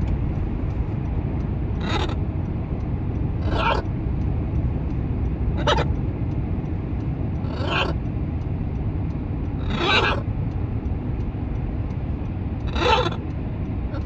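Pet macaws giving short calls, six of them roughly two seconds apart, over the steady low road noise inside a moving car.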